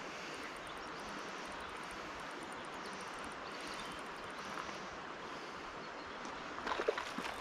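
Steady rush of a fast-flowing river's current. A short, louder flurry of sharper sounds comes near the end.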